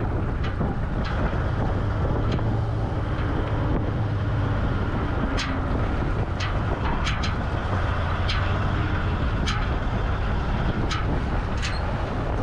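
Recovery vehicle's engine running steadily while pulling on a taut tow rope, its low hum swelling and easing. Scattered sharp ticks sound over it.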